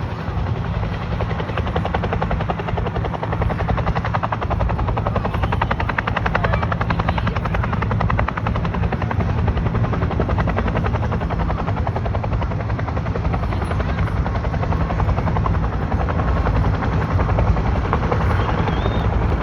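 Helicopter running close by, its rotor chopping fast and steadily with the engine drone underneath.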